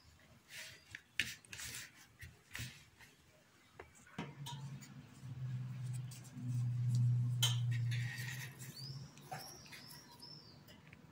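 Hands kneading soft bread dough in a bowl: irregular sticky squelches and pats. About four seconds in, a low steady hum takes over for several seconds, and a few short high chirps come near the end.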